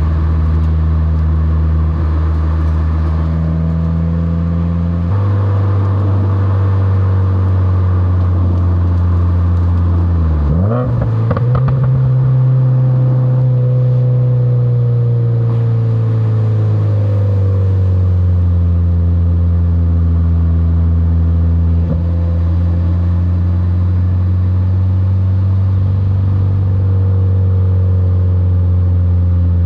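2021 Subaru WRX's turbocharged flat-four engine pulling steadily on the road. Its note steps up in pitch about five seconds in, then drops and climbs again around eleven seconds, and wanders gently after that.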